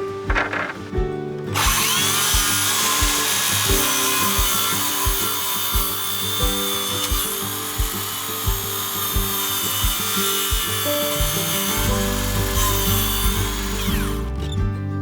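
An electric power tool spinning up, running steadily for about twelve seconds with a high whine, then winding down, heard over background music with a steady beat.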